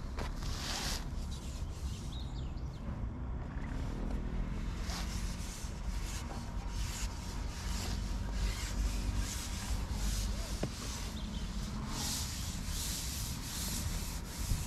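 Irregular rustling and rubbing noises over a constant low rumble.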